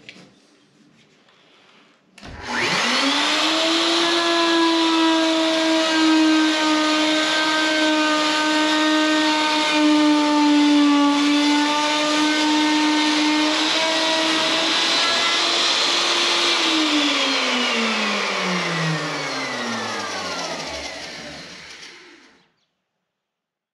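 Handheld power cutting tool cutting out a window opening through OSB wall sheathing. It starts a couple of seconds in and runs at a steady high pitch. Near the end it is switched off and winds down, its pitch falling for several seconds until it stops.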